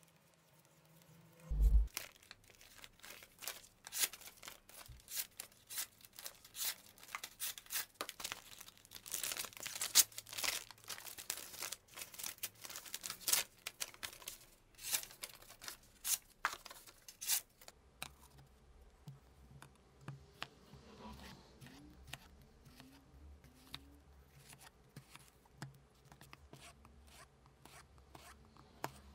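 Italian slicer knife blade cutting through a sheet of paper in quick strokes, a dense run of sharp crisp slicing and tearing sounds: a paper test of the freshly sharpened edge. A thump comes about two seconds in. Over the last ten seconds come quieter, softer cuts as the knife slices a tomato on a plastic cutting board.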